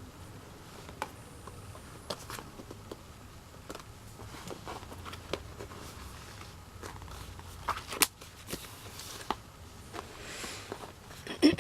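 Album packaging being handled: scattered light clicks, taps and rustles of cardboard and paper as the album is opened and looked through. A louder, short sound comes right at the end.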